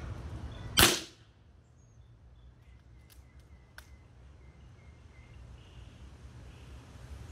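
A single shot from a Macavity Arms MA2 .30-calibre PCP air rifle about a second in: one sharp crack with a short tail. A few faint clicks follow a couple of seconds later.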